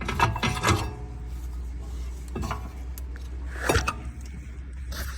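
Metal clinks and knocks from a front brake caliper being worked free and pulled off the rotor: a quick cluster of clinks in the first second, then two single knocks, over a steady low hum.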